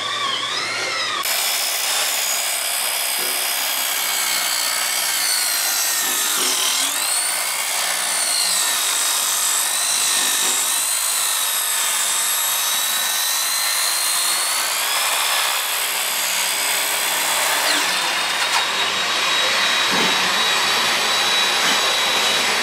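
Handheld Ryobi circular saw cutting lengthwise into a timber beam, making plunge cuts close to a marked line. The motor's whine wavers up and down as the blade is pushed through the wood, then holds a steady pitch over the last few seconds.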